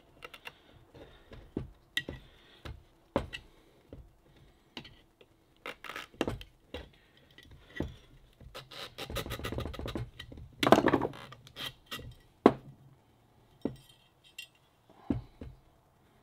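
Screwdriver scraping and clicking against a bronze raw water pump body and its rubber impeller as the impeller is worked onto the shaft, with scattered knocks of small metal parts. A quick run of ticks comes about nine seconds in, followed by the loudest scrape.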